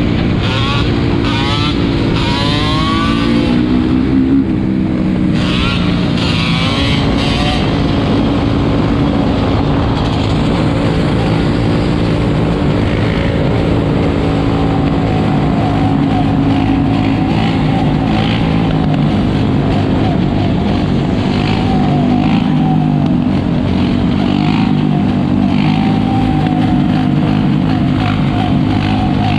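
Several four-wheeler (ATV) engines running together at close range, revving up in the first few seconds and then holding a steady, wavering drone.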